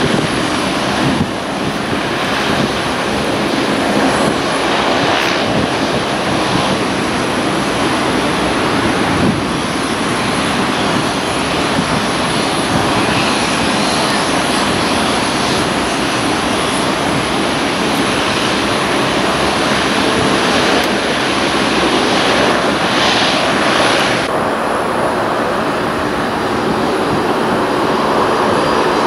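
Jet aircraft engines running, a loud steady rush with a thin high whine above it. The upper hiss drops away about 24 seconds in.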